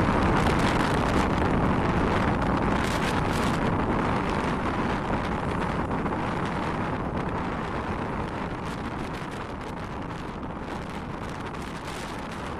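Wind buffeting the microphone over a steady rushing noise, slowly fading.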